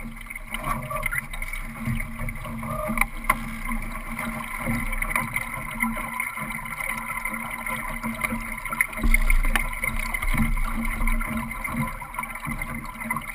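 Solo sailing dinghy under way: water rushing and slapping along the hull, heard from a camera fixed in the boat, with a louder low rumble about nine seconds in.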